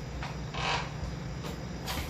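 Kick-starter of a 1968 Triumph 650 twin being worked, with short mechanical scrapes and clunks as the engine is turned over without catching, over a steady low hum. The engine will not fire: a hard-start fault that the owner narrows down to the stator.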